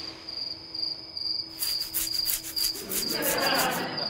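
Crickets chirping in an even, pulsing rhythm, the comic sound effect for an awkward silence. A rubbing rustle swells up near the end.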